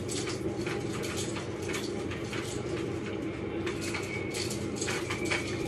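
Scattered light clicks and clinks over a steady low hum, with two brief high tones, one about four seconds in and one near the end.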